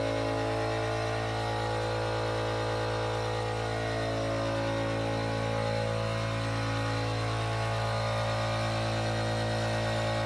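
Steady mechanical hum of an air compressor motor running to feed a paint spray gun, with no spray hiss.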